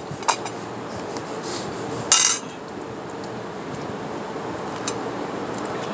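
Tableware and objects being handled at a meal table. Two light clicks come at the start, a louder clattering clink about two seconds in, and one small click near the end, over a steady background hiss.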